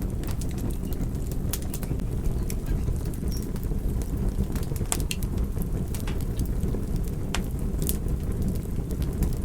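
Campfire burning, with frequent irregular sharp crackles and pops over a steady low rumble.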